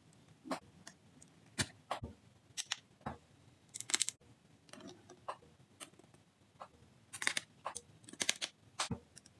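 Irregular small clicks and brief rustles from handling the plastic action figure, its parts and packaging, a little louder around four seconds in and again near the end.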